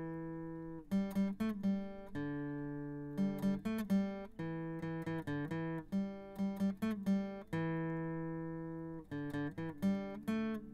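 Background music on acoustic guitar: a run of plucked notes and chords, each ringing out and fading.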